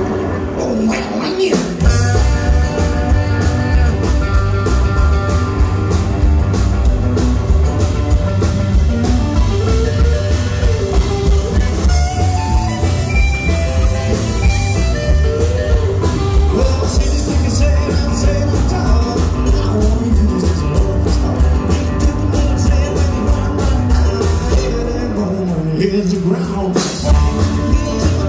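Rock and roll band playing live and loud: upright double bass, drums, electric and acoustic guitars and piano in a steady driving groove. The bass and drums drop out briefly twice, about a second in and near the end.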